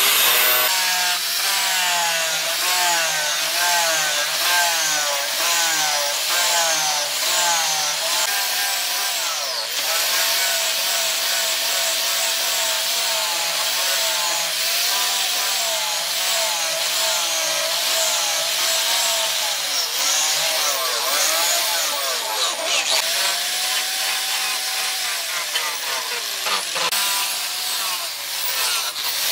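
Handheld angle grinder running, its disc grinding a steel knife blade and throwing sparks. The motor's whine dips and recovers over and over as the disc is pressed into the steel and eased off.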